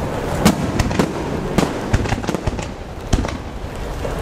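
Aerial firework shells bursting: a run of sharp bangs at uneven intervals, the loudest about half a second in and just after three seconds, over a steady background noise.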